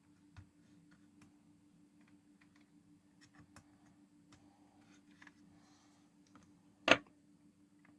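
Scattered light clicks and taps from small tools and parts being handled on a workbench, with one sharper knock about seven seconds in, over a faint steady hum.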